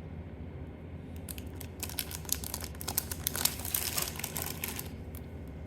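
Packaging crinkling as it is handled: a dense, rapid crackle from just over a second in until near the end, while accessories are taken out of an unboxed soundbar's box.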